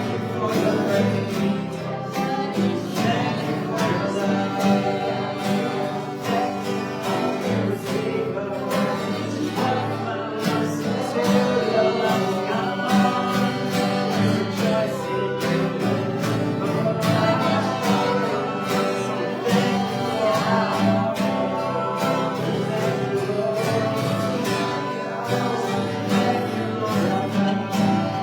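Worship song: voices singing over guitar accompaniment.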